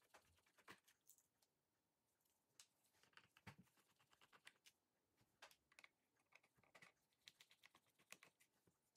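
Near silence broken by faint, irregular light clicks and taps of gloved hands handling a laptop's plastic bottom cover.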